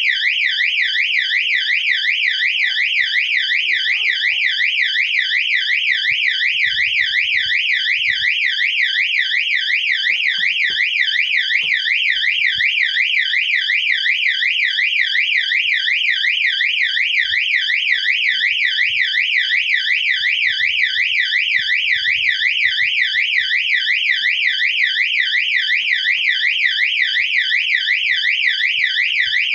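Qwork fire alarm siren-strobe unit sounding its electronic siren: a shrill, steady warble rising and falling several times a second without a break.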